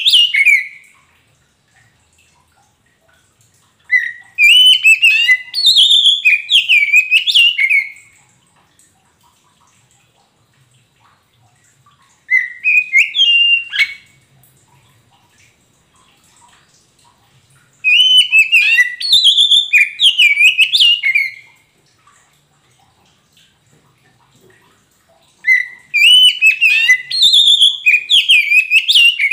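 Oriental magpie-robin of the kacer poci type singing in loud bursts of rapid, varied whistled notes, each burst a couple of seconds long, with pauses of a few seconds between them.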